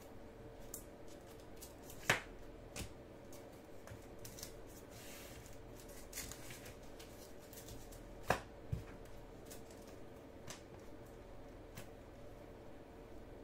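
A stack of glossy chrome baseball cards handled and sorted by hand: cards sliding and ticking against each other, with two louder clacks about two seconds and eight seconds in. A faint steady hum runs underneath.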